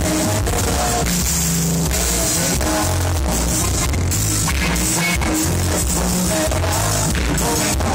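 Live band playing loud amplified music at a sound check, with a prominent bass line changing notes every half second or so and steady cymbal-like hiss on top.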